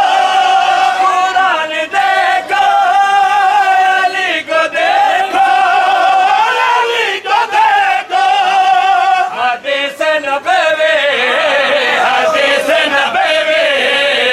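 A crowd of men chanting a Shia mourning lament (nauha) together in unison, holding long notes that rise and fall.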